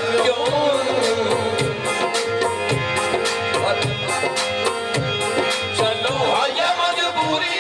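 A man singing a Punjabi folk song into a microphone, accompanied by a tabla keeping a quick, steady rhythm.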